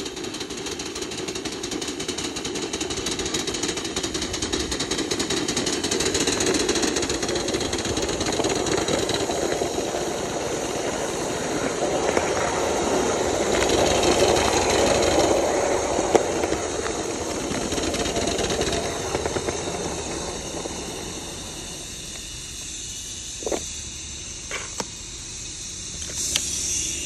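Coal-fired live-steam miniature locomotive running under way: a fast, rattling exhaust beat mixed with the clatter of its wheels on the rails. It eases off about three quarters of the way through, with two sharp clicks, and a burst of steam hiss just before the end.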